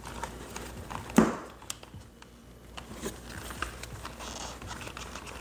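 Small plastic clicks, taps and light rustling from handling an action figure and its packaging, with one sharper knock about a second in.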